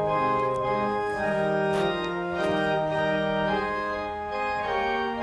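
Organ playing sustained chords that change every second or so: the closing voluntary after the benediction.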